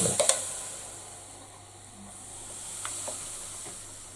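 Granulated sugar pouring from a bag into the plastic bowl of kitchen scales: a steady hiss of falling grains that eases off, swells again partway through, then fades.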